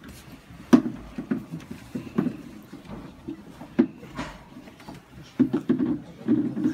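Crowded small room: scattered knocks and clicks as people shift and move about, with low muffled voices murmuring toward the end.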